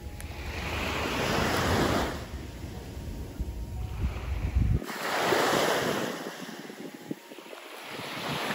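Ocean waves washing onto a beach, the surf swelling twice about four seconds apart. Wind rumbles on the microphone in the first half.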